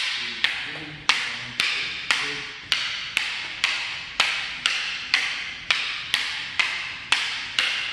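Kali fighting sticks striking one another in a steady rhythm of sharp clacks, about two a second, each ringing briefly. This is the double-stick heaven six pattern meeting a single stick's broken strikes.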